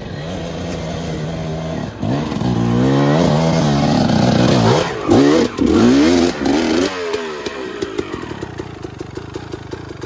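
Dirt bike engine running steadily, then revving hard with rising and falling pitch for several seconds, with short throttle blips near the middle, before dropping back to a quieter steady run.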